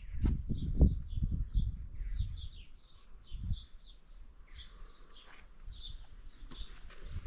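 Small birds chirping, a steady string of short high chirps throughout. In the first two seconds there are low thumps and rumble, the loudest about a second in.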